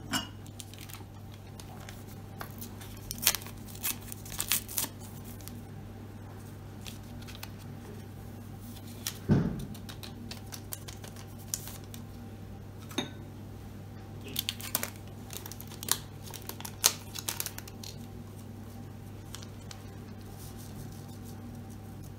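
Small paper sachets of baking powder and vanilla sugar being torn open, crinkled and shaken out over a mixing bowl, in clusters of crackles and clicks, with a louder knock about nine seconds in. A steady low hum runs underneath.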